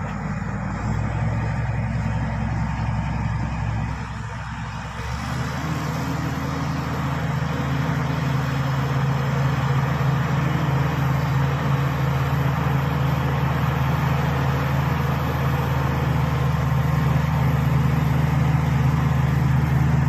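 Shantui SD16 crawler bulldozer's diesel engine running steadily under load as the dozer pushes a blade-load of wet earth. Its note shifts about five seconds in and grows slightly louder toward the end.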